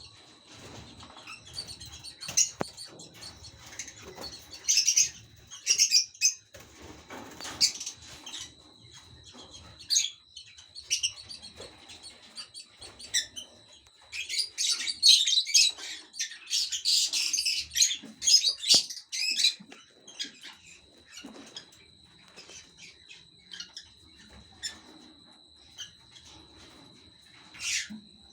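Young lovebirds chirping: short, sharp, high-pitched calls in irregular bursts, busiest about halfway through, over a faint steady high whine.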